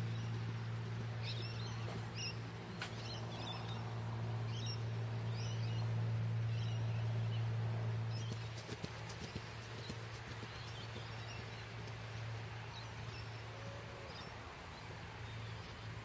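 Hoofbeats of a horse cantering on grass, growing fainter as it moves off, with birds chirping and a steady low hum that eases about halfway through.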